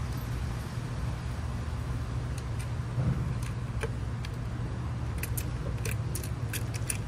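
Small metal bolts and washers clicking and clinking as they are handled and threaded into a metal windshield mounting bracket, with a cluster of clicks about five to six seconds in, over a steady low hum.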